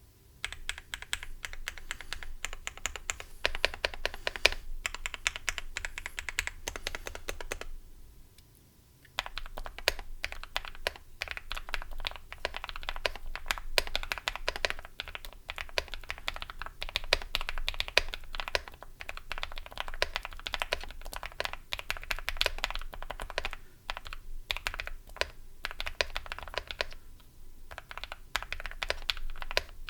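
Mechanical keyboard with Epomaker Jade Blossom linear switches in a Tofu60 with a PC plate and foam, GMK-profile keycaps and Staebies V2 stabilizers: the modifier keys are pressed repeatedly for about eight seconds, then after a short pause the whole board is typed on continuously. The switches have a deep, poppy sound at medium volume, strongest on top out.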